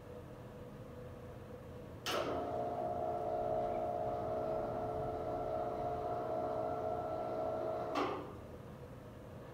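Motorized ceiling projection screen lowering: a click about two seconds in, then a steady motor hum for about six seconds, ending with a click as the motor stops.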